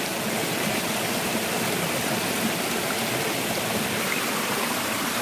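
Shallow stream running steadily down a small rock cascade, a constant rushing of water.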